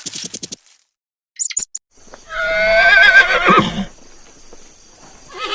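An animal's loud, wavering call about two seconds in, lasting nearly two seconds and dropping in pitch at the end, after a few short high squeaks at the start.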